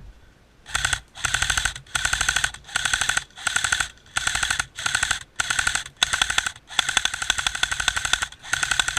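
Airsoft rifle firing on full auto in about ten short bursts of rapid clicking shots, with one longer burst near the end.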